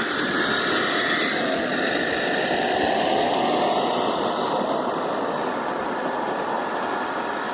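Battery-powered remote-control car, a model 1963 Volkswagen Beetle, driving on the road: its electric motor and gears whine steadily, the pitch rising and falling as it speeds up and slows.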